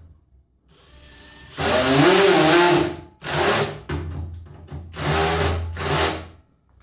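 Cordless drill-driver turning screws in a metal plate, its motor whining in bursts: a faint start, one long run of about a second and a half, then three shorter runs, the pitch rising and falling with the trigger.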